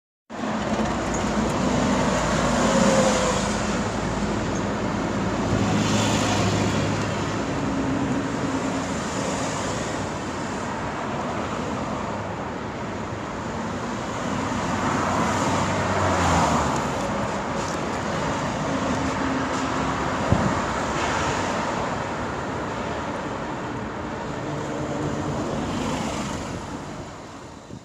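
Street traffic ambience: a continuous wash of road noise with vehicle engines humming as they pass, swelling and fading, and a single sharp knock about twenty seconds in.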